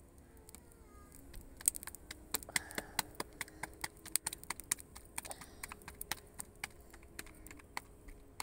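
Hands slapping a ball of roti dough flat between the palms: a quick, irregular run of light slaps and taps, several a second, starting about a second and a half in.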